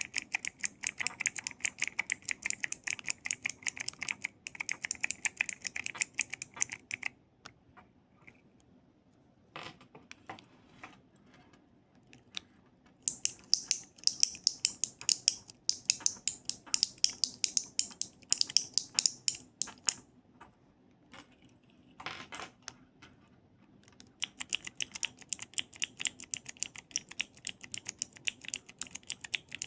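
Keyboard keys being tapped rapidly for ASMR: three long runs of fast, crisp clicking, broken by stretches of only a few scattered single clicks.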